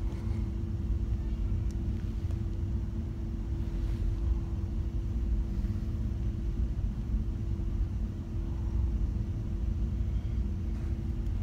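Cruise ship's low, steady rumble with a constant hum, as heard inside a cabin.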